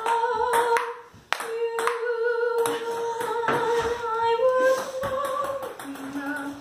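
A girl singing long, held notes, with sharp clicks of a ping-pong ball striking the table and paddles, most of them in the first couple of seconds.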